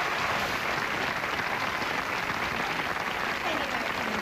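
Television studio audience applauding, a dense steady clapping.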